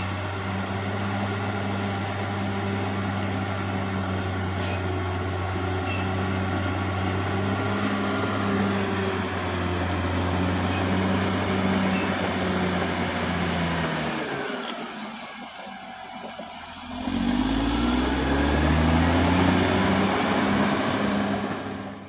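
Caterpillar D6R XL bulldozer's diesel engine running steadily under load, easing off about two-thirds of the way through, then revving back up with a rising pitch.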